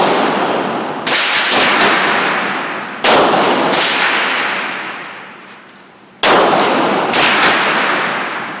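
Gunshots at a shooting range, about six in all: three loud shots a couple of seconds apart, each followed about half a second later by a weaker one. Every shot has a long echoing tail that fades over a second or more.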